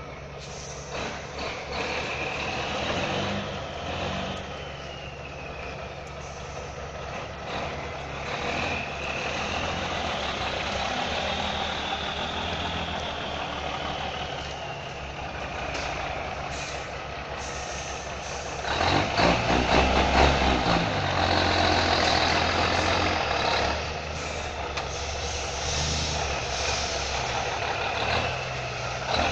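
Heavy logging truck's diesel engine running, with a whine that rises and falls in pitch; the engine gets clearly louder about two-thirds of the way through.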